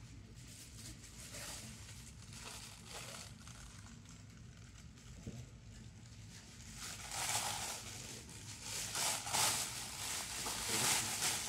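Crinkling and rustling of wrapping material being handled, faint at first, then louder and more frequent from about seven seconds in.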